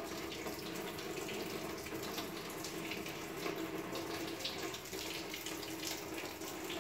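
Steady running water at a bathtub, with a sponge wiping the wet tub surface.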